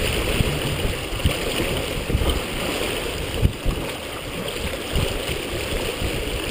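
Water rushing and splashing along the hull of a Merit 25 sailboat moving fast under sail, mixed with wind rumbling on the microphone.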